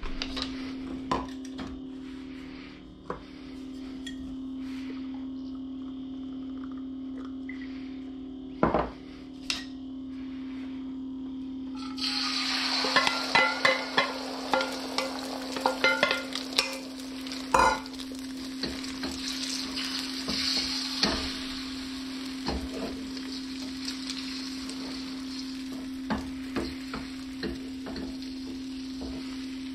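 Beaten eggs hitting hot oil in a wok: a sudden sizzle about twelve seconds in that keeps going, with the metal spatula scraping and clacking against the wok. A steady low hum runs underneath, and there are a few knocks before the eggs go in.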